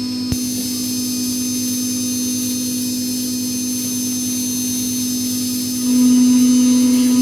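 CNC router spindle running steadily with a small four-flute end mill milling bronze, a constant high hum with a faint hiss. It grows louder about six seconds in.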